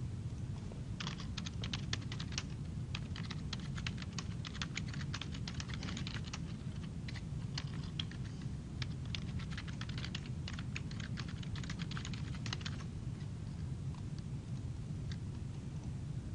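Typing on a computer keyboard: a quick, uneven run of keystrokes that starts about a second in and stops about three-quarters of the way through, with a few single keystrokes after that.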